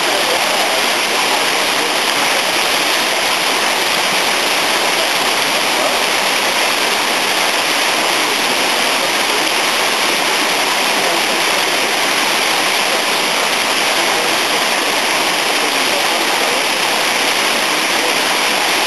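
Water rushing down a fish ladder in a steady, loud, unbroken roar of falling and splashing water.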